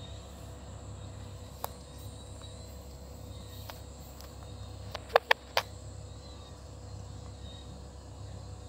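Steady night background with a faint low hum and thin high insect tones, broken by a single sharp click and then, about five seconds in, a quick run of three louder clicks.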